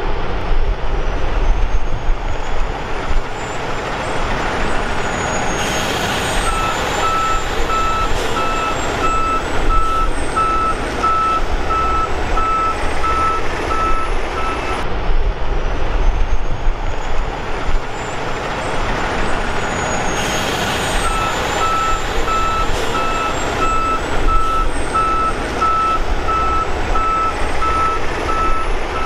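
Jet airliner engines running loud and steady, with a high turbine whine that wavers in pitch. A vehicle's reversing alarm beeps evenly at one pitch for several seconds, twice.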